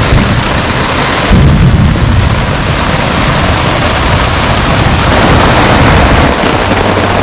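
Steady rain, with a low rumble of thunder rising about a second and a half in.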